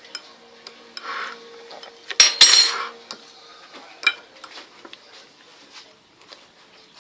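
A spoon stirring and scraping through Easy-Bake cake batter in a small bowl, clinking against the sides, with a louder clatter a little after two seconds in.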